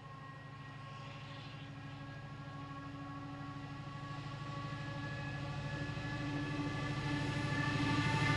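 Colas Rail Class 70 diesel locomotive, with its GE PowerHaul V16 engine, approaching at the head of a tank train. Its steady engine note grows gradually louder as it draws near.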